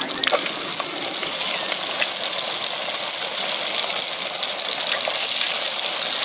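Battered chicken pieces deep-frying in hot oil in a deep-fry pot, freshly dropped in and bubbling hard: a steady, loud, hissing sizzle with fine crackles.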